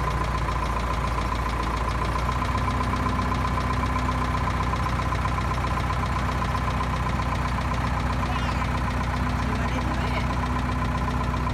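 Backhoe loader's engine idling steadily, an even low hum with a steady high tone above it, while the front loader bucket is lowered.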